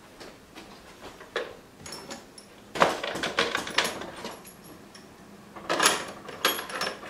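Items being handled and set on shelves: scattered knocks, clunks and rustles, busiest about three seconds in and again around six seconds.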